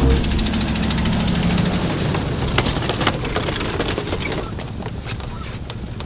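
Hummer H2's V8 engine running under load as it tows a loaded trailer, with a steady ticking from the engine.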